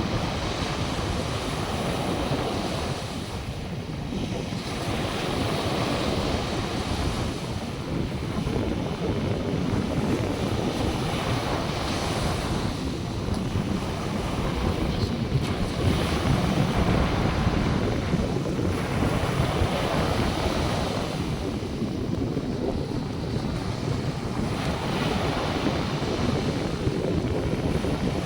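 North Sea surf washing in on the shore, the wash swelling and fading every few seconds, with wind rumbling on the microphone underneath.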